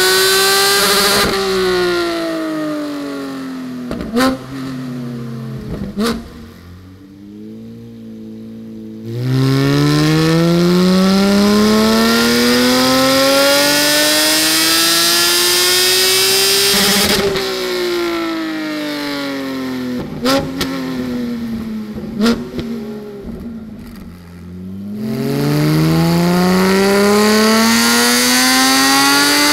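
Porsche 718 GT4's naturally aspirated 4.0-litre flat-six, fitted with SOUL competition headers and over-axle pipes, doing wide-open-throttle dyno pulls. The engine note climbs steadily for about eight seconds to near redline, the throttle snaps shut and the revs fall away with a few sharp pops from the exhaust, then a new pull begins near the end.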